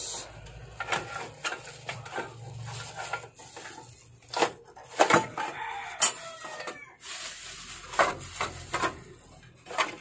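Salvaged microwave oven parts (magnetrons, capacitors, transformers) knocking and clinking against each other as they are rummaged through by hand: a string of sharp, irregular knocks.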